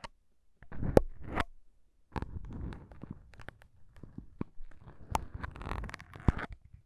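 Plastic syringes handled close against a recorder's foam microphone windscreens, their needle tips poking and scratching the foam. Irregular crackling scratches with a few sharp clicks, the loudest about a second in and again near five and six seconds.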